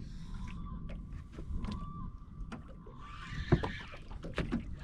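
Small boat on choppy water: water lapping against the hull under a steady low rumble, with scattered light knocks and a faint steady whine.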